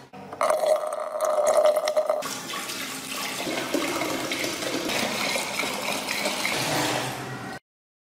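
A stream of water poured into an empty glass tank, splashing and rushing as the tank fills, then cut off abruptly near the end.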